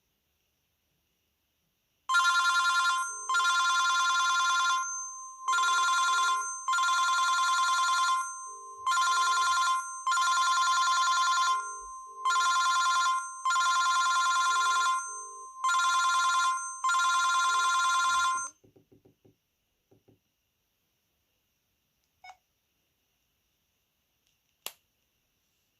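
VK530 mobile phone playing an electronic ringtone through its speaker: a ringing pattern that repeats for about sixteen seconds and then stops. A couple of faint clicks follow near the end.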